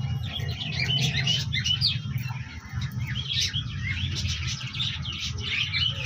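Small birds chirping and twittering in many quick, short calls, over a steady low hum.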